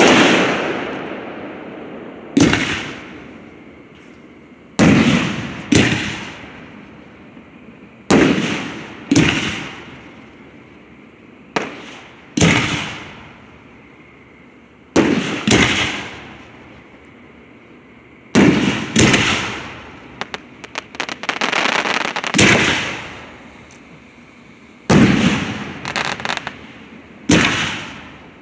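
Aerial fireworks shells bursting in a loud, steady barrage: a bang every one to three seconds, often in close pairs, each trailing off in a rolling echo. About twenty seconds in, a quick run of crackling pops.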